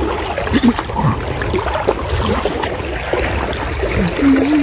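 Muddy floodwater sloshing and swirling as people wade waist-deep and swim through it. A short voice sound near the end.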